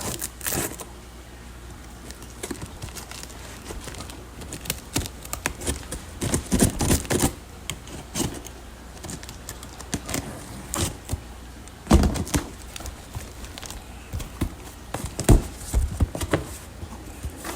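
Clicks, rattles and rustles of a fish shipping box being opened and its contents handled, with a few heavier thumps in the second half.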